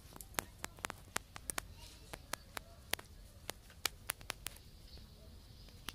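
Irregular sharp clicks and crackles, about three or four a second, of dry sticks and dry leaf litter as a bundle of firewood is carried along on foot.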